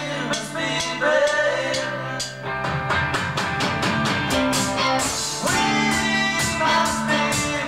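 Rock band playing a song, with a drum kit keeping a steady beat under guitar and a singing voice.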